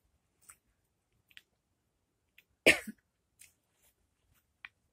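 A woman's single sharp cough-like sputter a little under three seconds in, as sour lemon juice catches in her throat, with soft mouth clicks and smacks from chewing the lemon before and after.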